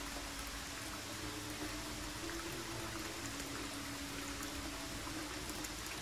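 Steady rush of flowing water from the sacred spring and waterfall, an even hiss with no breaks.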